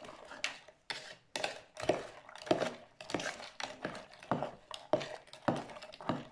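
A metal spoon stirring frozen cubes of goat milk and prickly-pear gel in a plastic jug, scraping and knocking about twice a second as caustic soda pearls are dissolved into them for a soap lye solution.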